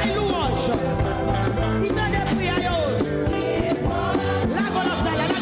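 Worship music: a band playing with singing, at a steady level.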